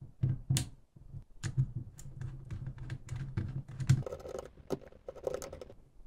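Hands handling a plastic relay control box and its cables: a run of light clicks and knocks, with some scratching and rubbing about two-thirds of the way through.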